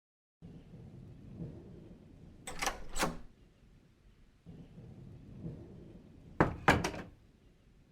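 A door being opened and shut: two clusters of sharp clicks and knocks, about two and a half seconds in and again near six and a half seconds in, over a low rumbling background.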